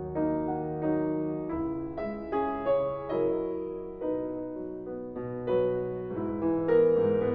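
Background music: a piano piece playing notes and chords at a gentle, moderate pace.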